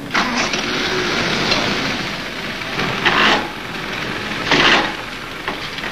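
Ford-Ferguson tractor engine running, heard on an old, hissy film soundtrack, with two louder bursts around the middle.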